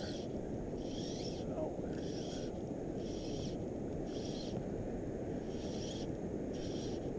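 Fly line being stripped in through the rod guides in short pulls, about one a second, each a brief hiss, over a steady rush of wind and water.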